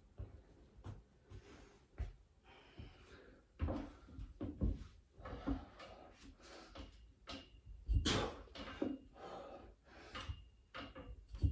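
Knocks and creaks from the metal frame of a free-standing pull-up station and a man's hard breathing as he does his last two pull-ups, the loudest knock about eight seconds in.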